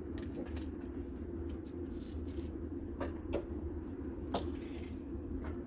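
Scattered knocks and clicks of tools and metal parts, about half a dozen short sharp ones, as work goes on at the engine mounts of a car having its engine removed. A steady low hum lies under them.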